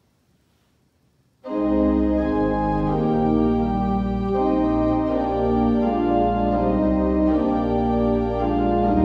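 Church organ playing: after about a second and a half of near silence, full chords come in suddenly over a steady held bass and move from chord to chord.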